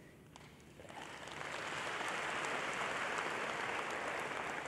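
Large audience applauding, the clapping building up about a second in and then holding steady.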